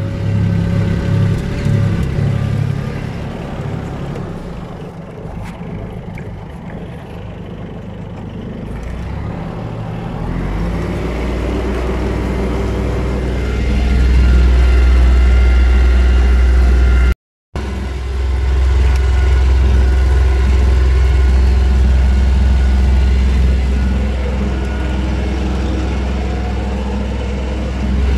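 Tractor engine running, heard from inside the cab: a steady low drone that gets louder about ten seconds in and then holds steady, with a brief drop-out about two-thirds of the way through.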